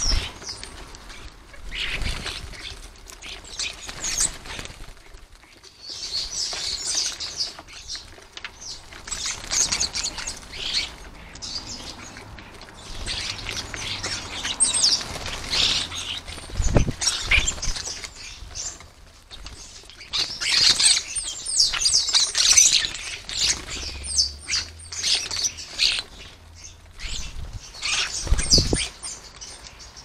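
A flock of common starlings crowded on a bird table: bursts of high chattering calls and clicks with wing flutters, and two dull thumps, one just past the middle and one near the end.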